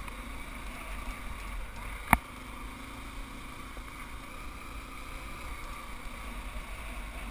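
Off-road motorcycle or ATV engine running steadily along a bumpy trail, with wind noise on the microphone and a single sharp knock about two seconds in.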